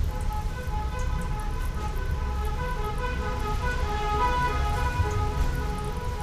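Gas burner under a wok running with a low, steady rumble, while a faint tune of short notes plays over it.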